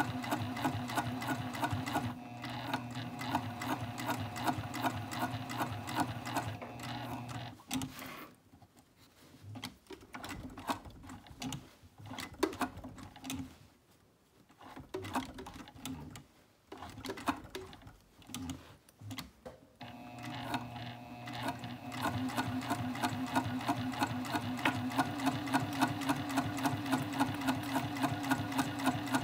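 Sewing machine stitching zipper tape to a fabric panel, running at a rapid, even stitch rhythm. In the middle it stops and starts in short runs for several seconds, then runs steadily again.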